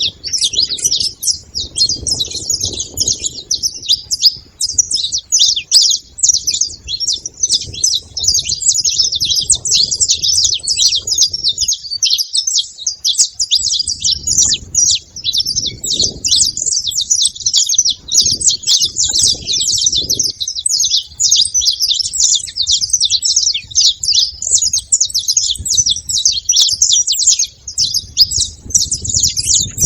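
Saffron finches chattering continuously, many short, rapid, high chirps overlapping without a break. A low rumble comes and goes underneath.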